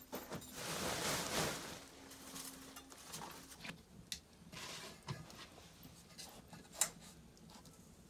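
A long paddle stirring a large metal pot of cooked goat feed: scraping and scattered knocks against the pot, with one sharp knock near the end. A brief rustling swell at the start.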